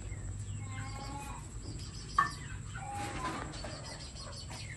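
Small puppies whimpering and squeaking in short, high calls, with one sharper, louder yelp about two seconds in.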